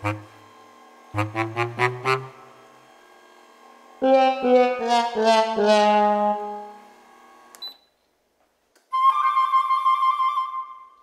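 Comic music stings with no other sound between them. A quick run of short notes steps upward, then about four seconds in a run of notes falls in pitch. After a short pause, one long wavering note is held near the end.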